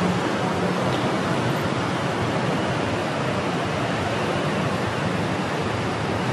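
Steady, even rushing noise of street ambience, with a low hum beneath it and no distinct events.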